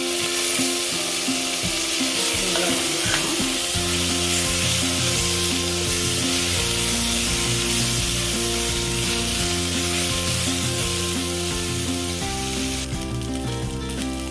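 Shallots, garlic, dried red chillies, spices, tomato and curry leaves sizzling in hot oil in a pan as they are sautéed and stirred. Background music plays steady notes underneath.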